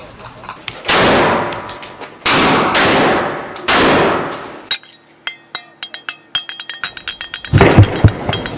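Gunfire and blasts of street fighting, played back from a recording on a phone's speaker: four heavy, clipped blasts about a second in, each dying away. Then a run of sharp, irregular cracks, and another loud blast near the end.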